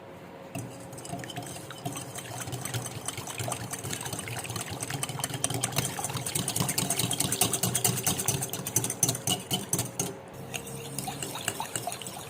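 Yogurt, oil and vanilla being beaten by hand in a bowl: a utensil clicks and scrapes rapidly against the bowl through the wet mixture, pausing briefly about ten seconds in.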